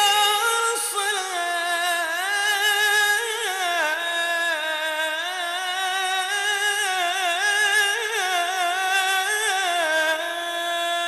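A single unaccompanied voice singing one long, ornamented phrase that winds up and down in pitch, settling into a long held note near the end.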